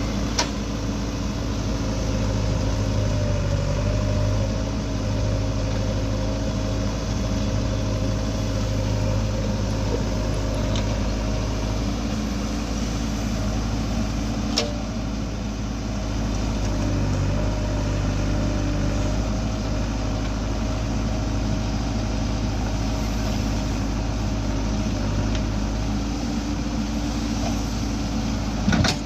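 Heavy diesel machinery engine running steadily at a constant speed, from a backhoe loader at work loading mud into a tractor trolley. A few sharp knocks stand out, about 15 s in and near the end.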